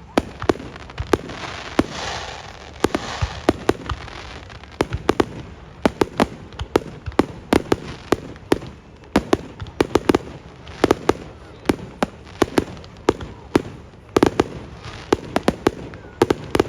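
Fireworks bursting: a rapid, irregular series of sharp bangs, several a second and often in quick clusters, over a steady crackling haze.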